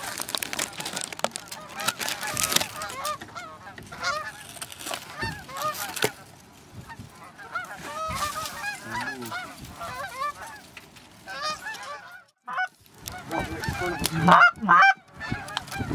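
A flock of Canada geese honking in flight overhead, many overlapping calls. The calls break off briefly about twelve seconds in, then return louder near the end.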